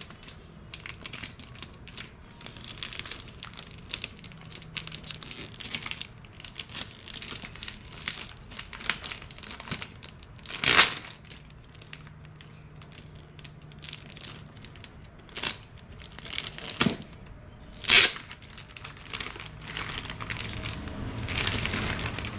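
Clear plastic bag crinkling and rustling as it is worked off and pulled away from a hard plastic gun case, in a long run of small crackles with a few sharper, louder crackles, the loudest about eleven and eighteen seconds in.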